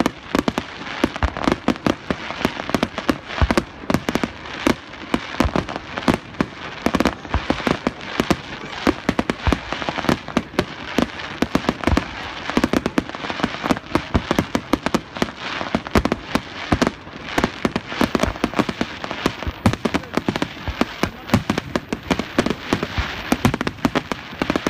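Aerial fireworks finale: a rapid, unbroken barrage of shell bursts and crackling reports, many bangs a second with no let-up.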